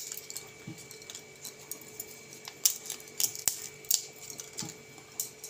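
Dried bay leaves crackling as they are torn apart by hand: a scattering of small, sharp, crisp snaps, irregularly spaced, over a faint steady hum.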